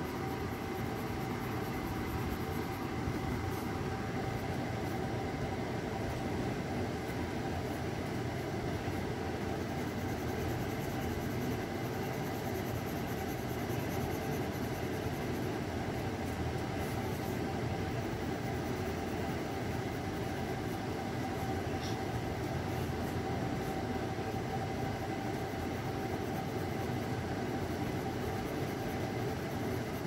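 Steady low rumbling background noise with a faint constant hum, unchanging throughout.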